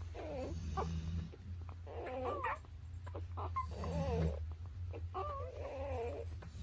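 Newborn puppies squeaking and whimpering while they nurse: a series of short, wavering high cries about once a second, over a low steady hum.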